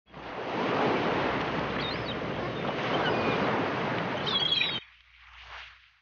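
A steady rush of small waves washing on the shore, with a few short gull calls over it; the rush cuts off suddenly a little before five seconds in, leaving only faint bird calls.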